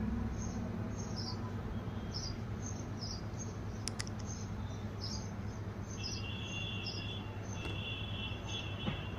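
A single short click about four seconds in, fitting a Samsung Galaxy phone's screen-lock sound. It sits over a steady low hum, with short high chirps repeating in the background and a steady high tone from about six seconds in.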